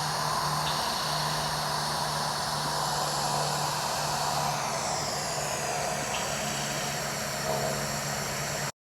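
Steady engine drone with a low hum, and a falling whine about halfway through; it cuts off suddenly near the end.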